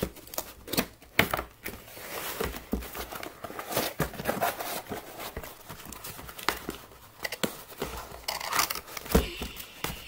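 Cardboard kit box being handled and opened by hand: irregular rustling, scraping and crinkling of the cardboard, broken by sharp knocks and taps as it is turned over and set down on the table.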